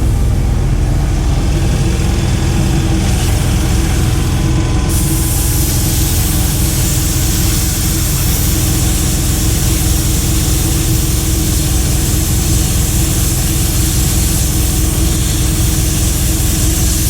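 A steady low mechanical drone runs throughout, and about five seconds in a loud hiss starts and holds as a metal-cutting torch, turned up after being set too low, cuts through steel.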